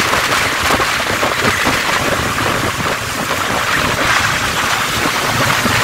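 Steady rushing noise from a moving vehicle on a rain-wet road: wind on the microphone mixed with tyre and rain hiss.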